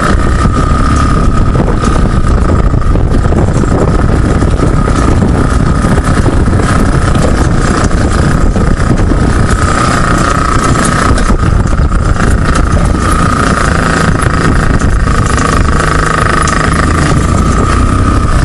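Dune buggy engine running steadily while driving across rough grass, a loud drone with a constant whining tone that weakens for a few seconds early in the drive and then comes back stronger.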